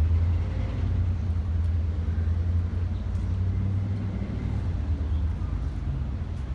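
A motor vehicle's low engine rumble going by, easing off over the last couple of seconds.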